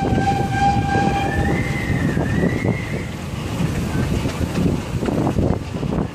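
Showman's steam road locomotive on the move: its steam whistle blows for about three seconds, its pitch bending upward partway through, over the engine's running rumble and clatter.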